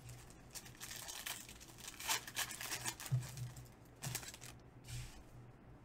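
Foil trading-card pack wrappers crinkling and tearing as they are opened by hand, with irregular crackles that are loudest about two and four seconds in.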